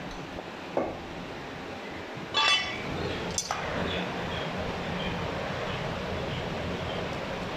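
Butcher's cleaver chopping mutton on a wooden block: a single chop about a second in, then a louder ringing metallic clink a little after two seconds, followed by steady low background noise.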